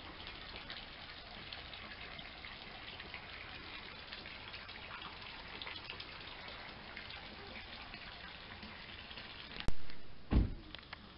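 Faint steady trickle of water, with small drips, in an open-air camp wash and shower area. Near the end there is a sharp click and then a short low thump.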